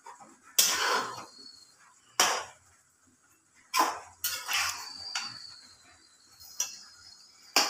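Slotted metal spatula scraping and knocking against a steel pot while stirring a thick mushroom curry, in several separate strokes with short pauses between.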